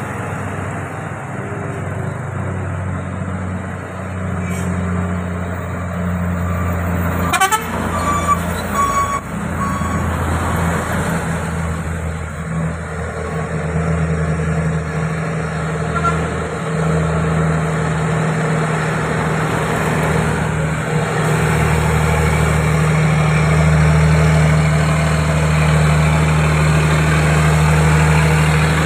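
Diesel engine of a heavy tanker truck running under load: a steady low drone that grows louder as the truck comes close near the end. There is a brief horn toot about eight seconds in.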